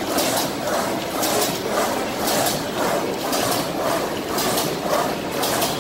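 Paper straw making machine running, a steady mechanical clatter with a fast regular beat of about two to three strokes a second.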